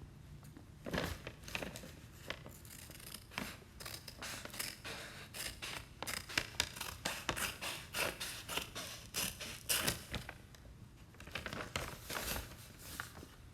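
Plastic blind-bag packaging being opened and handled: a dense run of crinkles, snips and small sharp clicks, loudest about six to ten seconds in.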